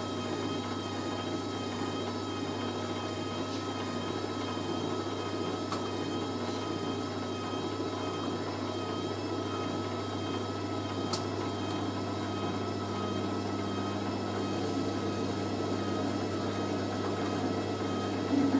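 Hoover A3060 Electronic 1100 washing machine spinning during its first intermediate spin: a steady motor whine and drum hum that holds level throughout, running smoothly without banging.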